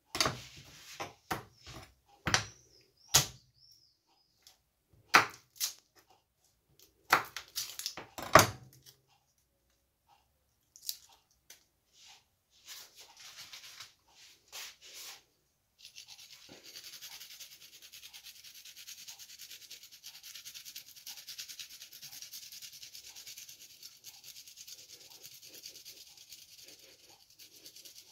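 A series of sharp knocks in the first several seconds, then a steady high rasping as a garlic clove is grated back and forth on a small flat metal hand grater, running through the second half.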